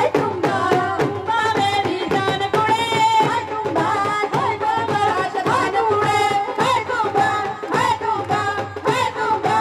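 Women singing a Punjabi folk song through microphones and a loudspeaker, over a steady beat of dhol drum strokes and hand clapping.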